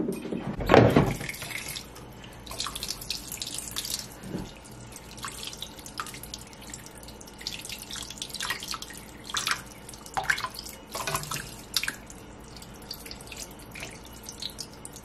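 Water sloshing, splashing and dripping as raw chicken pieces are washed by hand in a pot of water in a stainless-steel sink, with many short splashes throughout and a louder splash about a second in.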